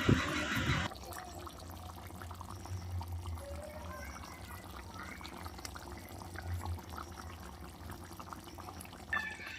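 Faint wet scraping and clicking of a spatula stirring thick chicken curry with cashew-poppy paste in a pan, over a low steady hum. A brighter hiss stops abruptly about a second in.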